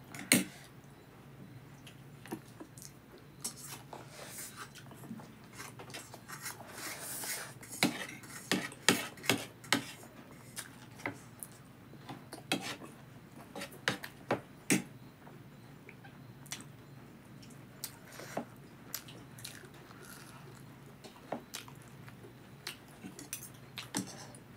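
Fork and spoon clinking and scraping against a plate of chow mein, sharp clicks scattered irregularly, with chewing of noodles between them.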